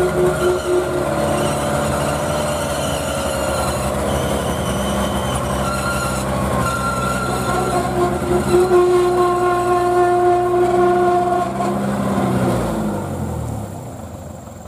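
Diesel engine of a loaded Ragasa 4x4 truck labouring in low gear through deep mud, its pitch rising and falling slightly with the load. It drops in pitch and fades over the last couple of seconds as the truck moves off.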